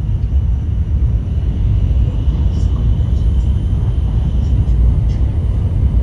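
Cabin noise of an N700S Kamome shinkansen running along the line: a steady low rumble heard from inside the passenger car.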